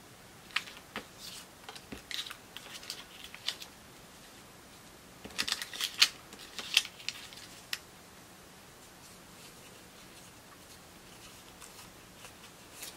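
Small pieces of paper and card being handled by hand on a cutting mat: scattered light rustles, crinkles and taps, with a busier flurry about halfway through and only a few faint ones later.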